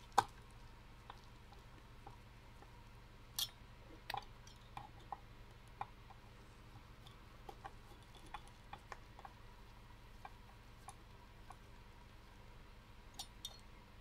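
Hand screwdriver driving a screw into a mini thermoelectric refrigerator's heat-sink mount: scattered small clicks and ticks of the driver and the plastic housing, with a sharper click near the start.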